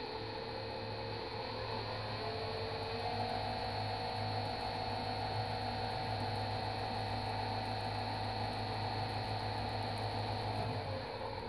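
7x14 mini lathe running through its HTD toothed drive belt and new belt tensioner roller: a motor and drive whine over a steady hum, rising in pitch as the spindle speeds up over the first few seconds, holding steady, then falling as it slows near the end.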